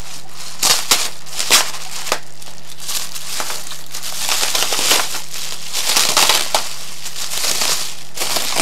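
Tissue paper being unwrapped and crinkled by hand: a few sharp crackles about a second in, then longer stretches of rustling.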